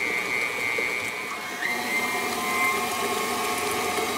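KitchenAid Professional stand mixer running steadily, its motor giving a constant whine as the beater creams butter and sugar in the steel bowl.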